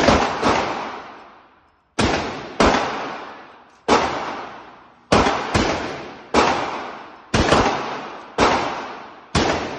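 Cimarron Texas Brush Popper, a Winchester 1873-pattern lever-action rifle in .45 Colt, fired rapidly: about eleven shots at irregular spacing, some in close pairs. Each shot rings on and fades over a second or so in the echo of the indoor range.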